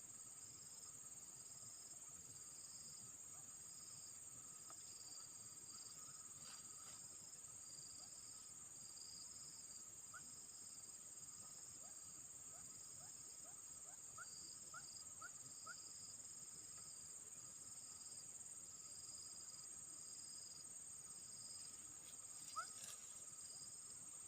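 Faint chorus of insects: a steady high-pitched buzz with a second insect chirping in a slow, even pulse. A few short rising chirps come in midway, and a single brief tap sounds near the end.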